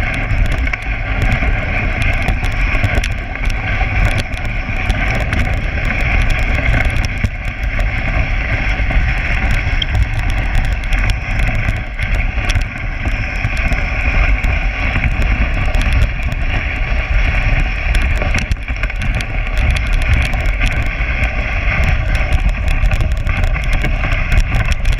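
Dog sled runners sliding over a packed snow trail: a steady scraping hiss, with frequent small knocks and rattles from the moving sled. Wind rumbles on the microphone.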